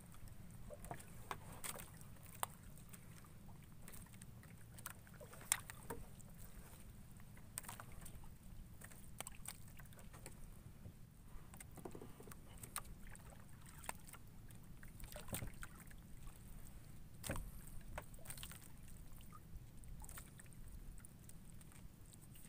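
Water lapping and splashing against a small wooden outrigger canoe under a steady low rumble, with scattered sharp knocks and splashes; the loudest is a single sharp knock about five and a half seconds in.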